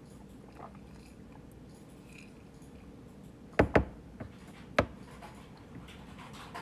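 Quiet room tone broken by sharp taps or knocks: two in quick succession a little past halfway, then a third about a second later.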